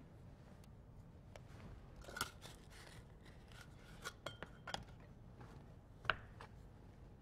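Faint, scattered knocks, taps and scrapes: a knife cutting refrigerated cinnamon roll dough on a cutting board, and dough pieces set into a ceramic casserole dish. There is a cluster of taps around the middle and a couple more a little after.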